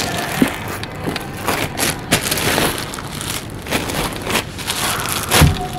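Clear protective plastic wrap on a car's rear seat crinkling and rustling as hands handle it, with scattered sharp clicks and a heavier thump near the end.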